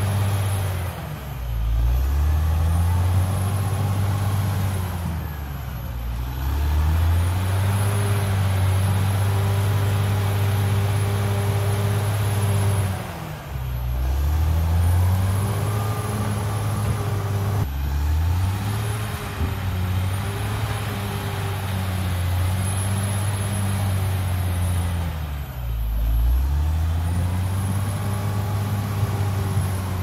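Diesel engine of a CAT D6R XL crawler bulldozer working hard as it pushes soil with its blade. The engine speed sags and recovers about four times.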